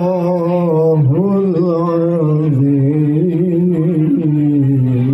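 A man reciting the Qur'an in the melodic tilawah style: one long, unbroken, ornamented line of held notes that wavers and slowly steps down in pitch.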